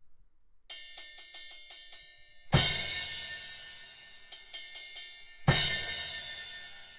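Zildjian A Custom 15-inch crash cymbal played: a quick run of light taps, then a full crash that rings and slowly fades. This happens twice.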